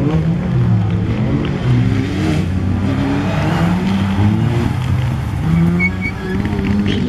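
Mitsubishi Lancer Evolution rally car's turbocharged four-cylinder engine revving hard on dirt, its pitch climbing and dropping repeatedly as the driver works the throttle and gears through the corners.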